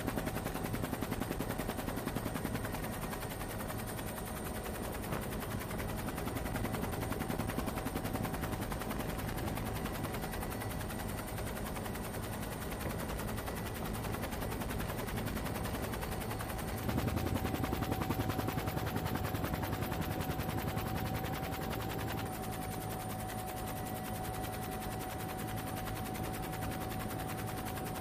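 Helicopter heard from inside the cabin: rapid, steady thudding of the rotor blades under a constant mechanical whine, swelling slightly about two-thirds of the way through.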